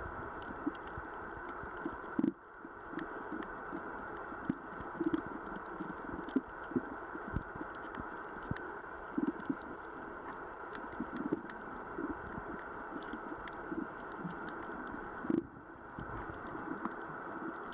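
Underwater ambience recorded beneath the surface: a steady hiss with irregular low knocks and faint scattered clicks. A sharper knock about two seconds in and another near the end are each followed by a brief dip in the hiss.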